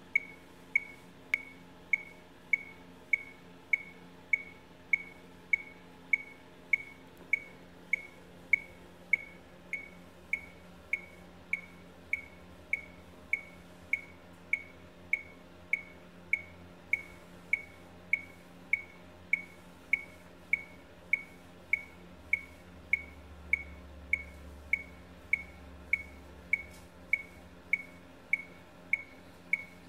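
Electronic metronome beeping a steady tempo: short, high beeps, evenly spaced at just under two a second.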